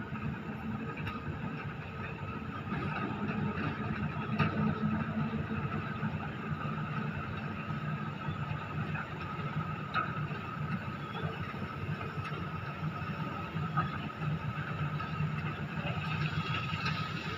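Amphibious excavator's diesel engine running steadily while it works, with a few faint knocks now and then.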